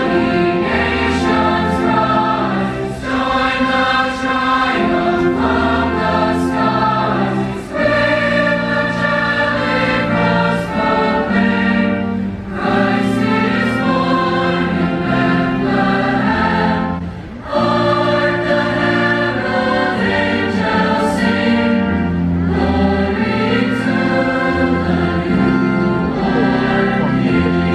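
A large choir singing a Christmas carol with orchestral accompaniment, in long held phrases over sustained low notes.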